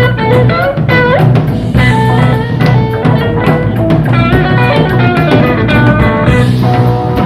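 Live blues-rock band playing an instrumental passage: electric guitar playing lead lines with bent notes over drum kit and bass, taken straight from the soundboard.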